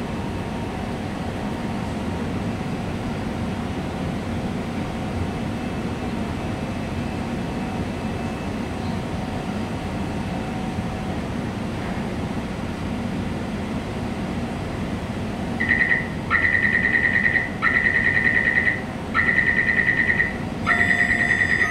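Steady low hum of a metro train standing at the platform. About fifteen seconds in, a rapid trilling electronic beep starts, sounding in five bursts of about a second each: the door-closing warning before departure.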